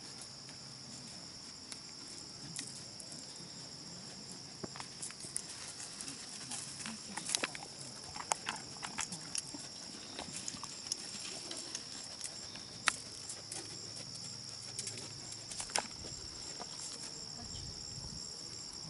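A horse moving through a sand arena, its hooves and tack giving scattered soft thuds and sharp clicks, thickest in the middle, over a steady high chirring of insects.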